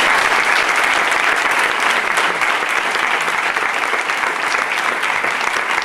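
Audience applauding: steady, dense clapping from a crowd of people.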